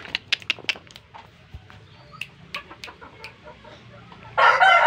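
A few short, sharp clicks in the first second, then a rooster starts a loud crow near the end, its pitch held steady.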